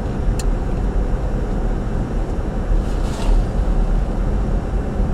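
Steady road and wind noise inside a moving vehicle, with a short click about half a second in.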